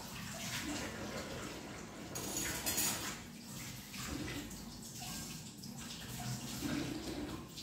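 Water running from a kitchen tap into a sink as dishes are washed by hand, the flow rising and falling unevenly.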